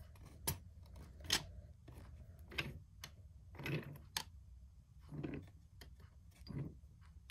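Faint, scattered clicks and knocks, about one a second, as the plastic doors of a toy engine shed are closed by hand over wooden toy trains.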